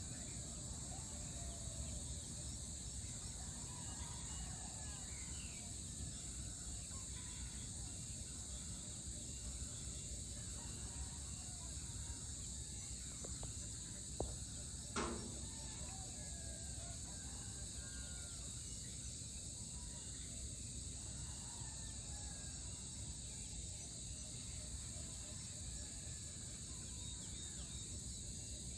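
Early-morning tropical outdoor ambience: a steady high-pitched insect chorus with scattered short bird chirps over a low background rumble. Two brief knocks about halfway through.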